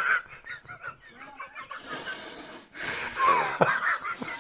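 A person hiccuping in a long-running bout of hiccups, mixed with wheezy laughter. There is a burst at the start and a louder one about three seconds in, with a sharp downward yelp near its end.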